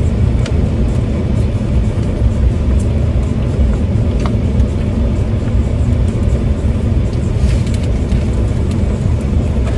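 Steady low rumble of a car heard from inside the cabin, most likely its engine idling while parked, with a few faint clicks and taps.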